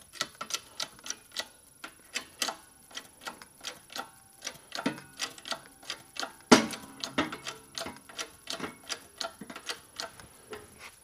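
Irregular sharp metallic clicks and ticks, several a second, with one louder crack about six and a half seconds in, as a keyway broach is pushed through a pulley bore in a 20-ton hydraulic shop press.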